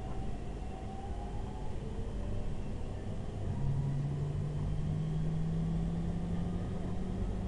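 Passenger train heard from inside the carriage while running: a steady low rumble of wheels on track, with a steady low hum that comes in about three and a half seconds in.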